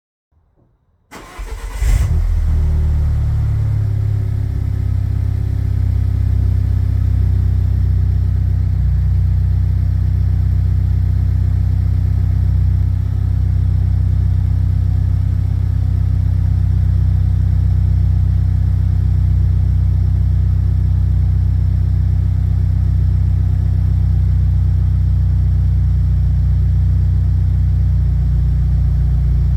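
Alfa Romeo Brera's 1.75 TBI turbocharged four-cylinder petrol engine being started: a short crank, catching about two seconds in with a brief flare, then settling into a steady idle through the exhaust.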